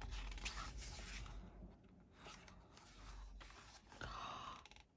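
Soft paper rustling as photobook pages are handled, then a breathy sigh about four seconds in.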